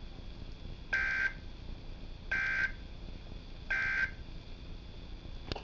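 NOAA Weather Radio EAS end-of-message data bursts: three short warbling two-tone digital bursts about a second apart, marking the end of the alert, over faint radio hiss. A brief click comes near the end.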